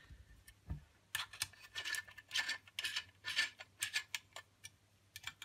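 A 3 mm Allen key turning a screw that holds an accessory rail on an airsoft rifle's front end. It makes a run of short metal-on-metal scraping strokes, two or three a second, as the screw is tightened down.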